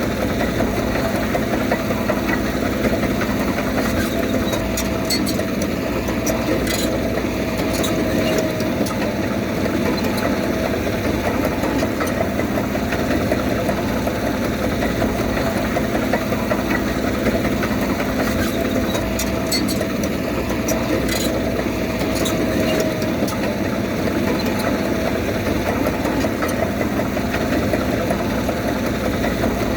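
Diesel engine of a heavy earthmoving machine running steadily, with a few faint clicks now and then.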